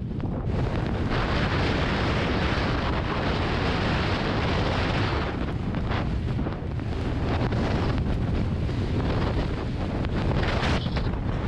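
Wind buffeting the microphone at speed during a downhill run in falling snow, a steady low rumble. A loud hiss of skis or board sliding over fresh powder swells from about a second in to about five seconds, and again near the end.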